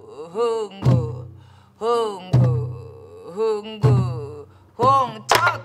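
Soribuk (pansori barrel drum) played in the slow jinyang rhythm: a deep, ringing palm stroke on the drumhead about every one and a half seconds, each with the player's sung drum syllable ('heung-gung'). Near the end a sharp stick click on the drum.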